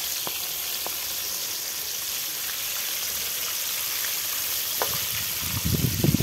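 Flour-coated chicken pieces deep-frying in hot oil in a wok, a steady crackling sizzle. Near the end a slotted spoon stirs the pieces, adding louder low knocking and rumbling.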